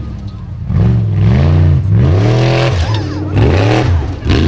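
Off-road race buggy's engine revving hard in repeated throttle bursts while the car climbs a steep loose-dirt slope. After a brief lull at the start, the pitch rises and falls several times.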